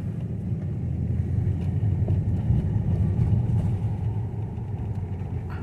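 2002 Mercedes CL500's 5.0-litre V8 running smoothly on a low-speed drive, a steady low rumble of engine and road noise, on new spark plugs, plug wires and coil packs.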